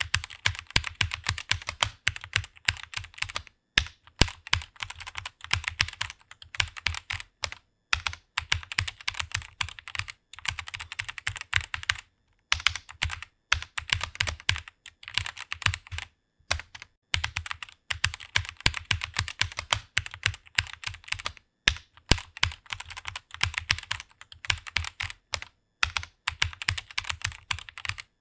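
Fast typing on a computer keyboard: rapid runs of keystroke clicks with short pauses between bursts.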